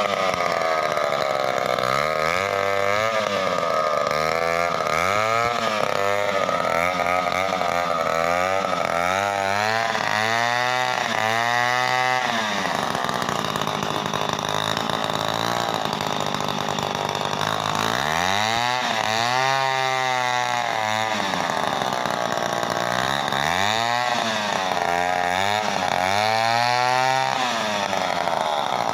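Two-stroke chainsaw running while cutting timber, its engine pitch repeatedly dipping and climbing again every second or so, with a steadier stretch midway.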